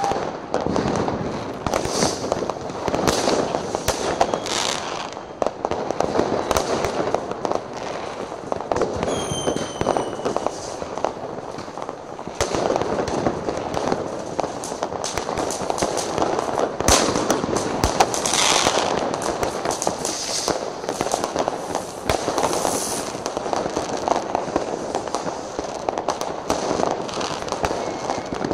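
New Year's Eve fireworks and firecrackers going off: a dense, continuous barrage of bangs and crackling. A brief whistle falls in pitch about nine seconds in.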